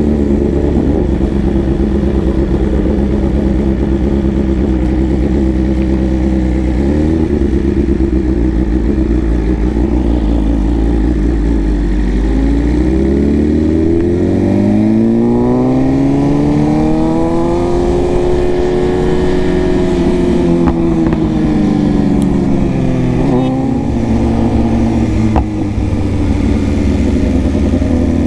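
Superbike engine running while riding at steady revs. About halfway through, the revs climb smoothly for several seconds, then ease back down.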